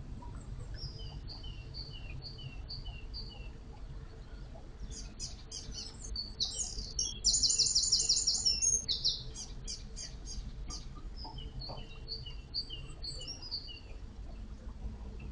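Songbirds singing: rows of short repeated chirps, and a loud, rapid trilling song for about two seconds near the middle. Underneath is the steady low churn of water stirred by an electric narrowboat's propeller.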